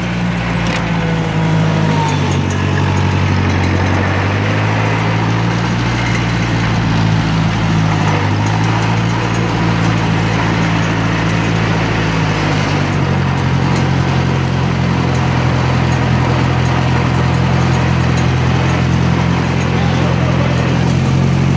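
1958 Cockshutt 540's four-cylinder flathead engine idling steadily, heard up close, its speed shifting slightly a few times.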